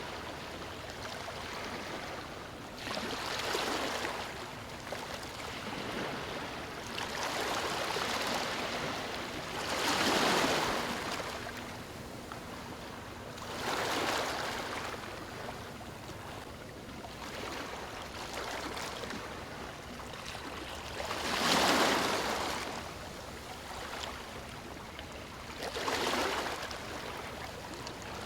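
Small waves breaking on stones: a steady rushing wash that swells and falls back every few seconds, a couple of the surges louder than the rest.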